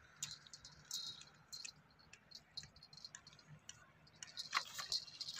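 Faint, irregular clicks and ticks, growing busier near the end.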